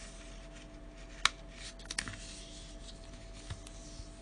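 Folded sheet of white paper being handled and creased flat: soft paper rustling, with a sharp click about a second in and a few lighter ticks after it.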